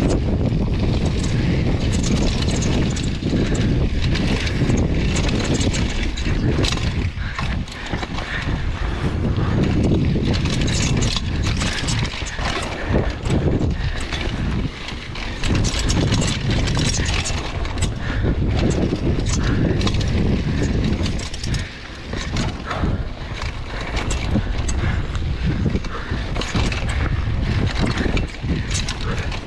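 Wind rumbling on the camera's microphone while a mountain bike rolls fast down dry, rocky dirt singletrack, with the tyres hissing on the dirt and frequent short clatters and knocks as the bike and its suspension rattle over rocks and bumps.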